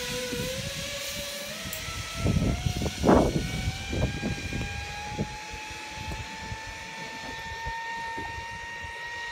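Zipline trolley pulleys running along the steel cable: a steady whine that rises slowly in pitch as the rider picks up speed. Low rumbles come about two to four seconds in.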